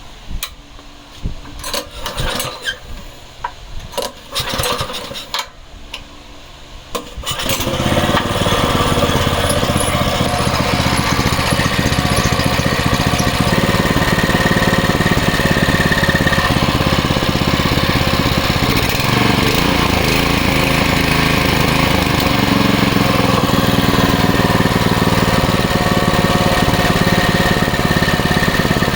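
Westinghouse WPX3200 pressure washer's small single-cylinder gas engine being started: a few seconds of irregular pulls and clatter, then it catches about seven seconds in and runs steadily.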